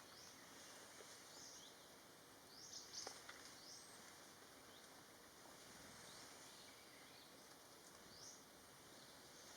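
Faint, scattered bird chirps, short and high-pitched, every second or two over a steady background hiss, with a faint tick about three seconds in.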